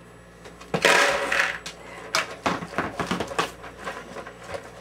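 Dry kibble poured from a scoop into a dog dish, a loud rattling rush about a second in. Then a yellow Labrador eating from the dish: scattered crunches and clicks of kibble against the bowl.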